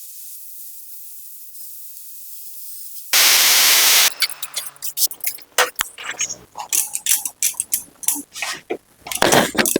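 A loud spraying hiss about three seconds in, lasting about a second, followed by a run of irregular sharp clicks and knocks.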